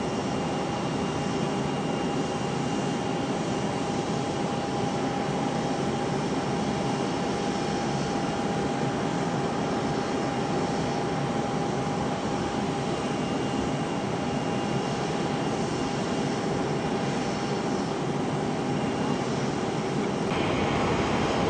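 Bombardier Global 5000 business jet's two rear-mounted Rolls-Royce BR710 turbofans running at taxi power: a steady jet whine with one constant tone over an even rush of engine noise, growing slightly louder near the end.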